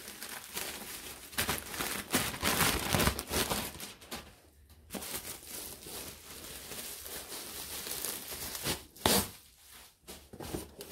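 Bubble wrap and a plastic mailer bag crinkling and rustling as a parcel is pulled out and unwrapped by hand, in irregular bursts with a short pause about four seconds in and one brief sharp crackle about nine seconds in.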